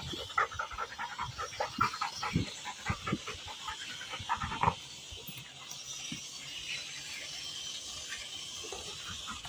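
A dachshund panting quickly, about three or four breaths a second. The panting stops about halfway through, leaving a faint steady hiss.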